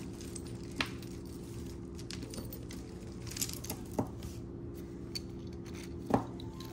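Costume jewelry clicking and clinking as it is handled and set down: three or four short, sharp clicks, the loudest about six seconds in, over a steady low hum.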